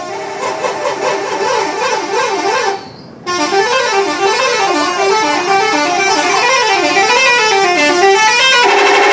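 Bus telolet horn, several air-horn tones sounding together, playing a quick up-and-down warbling melody. It breaks off briefly about three seconds in, resumes, and gives way near the end to a steady held horn tone.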